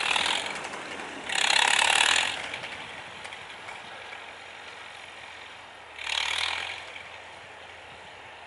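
Farmall 450 tractor plowing snow: a faint, steady low engine drone with three short, loud bursts of mechanical noise, the loudest about one and a half seconds in and another about six seconds in.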